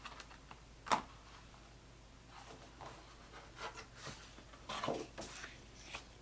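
Large fiber-based photographic prints being handled and flipped through: a sharp tap about a second in, then soft paper rustling and sliding, busiest near the end as the next print is turned up.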